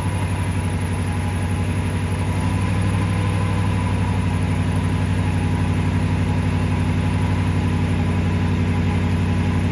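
Toyota Tundra's V8 engine idling steadily just after a jump start, still running on its own with the boost pack disconnected, a sign the alternator is charging. It gets a little louder about two and a half seconds in.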